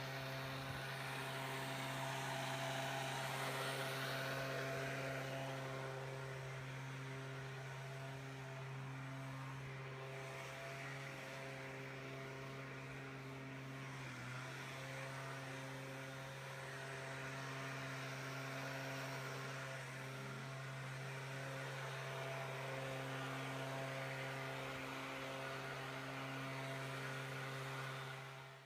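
A small engine or motor running with a steady drone and an even hum.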